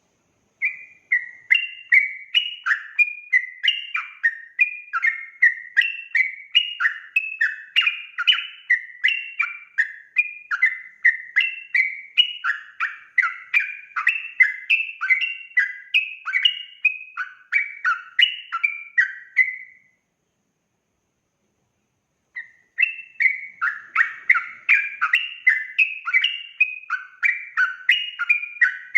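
Yellow-vented bulbul (trucukan) singing a fast, unbroken 'ropel' song of short bubbly, up-and-down phrases, about two a second. The song stops for a couple of seconds about two-thirds of the way through, then starts again just as fast.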